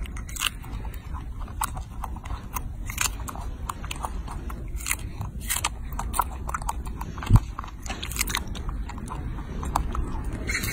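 A baby monkey biting into and chewing a strawberry: many quick, irregular mouth clicks and smacks. A single low thump about seven seconds in.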